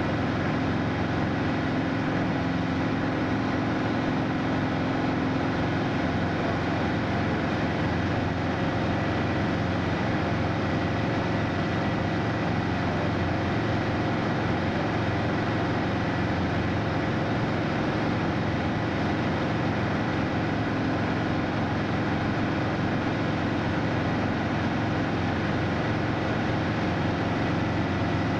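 Steady drone of a Piper PA-28's piston engine and propeller heard from inside the cabin in cruise-descent, holding an even pitch and level throughout.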